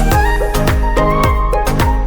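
Background music with a steady beat: deep drum notes that drop in pitch about twice a second, quick sharp hits between them, and a melody line above.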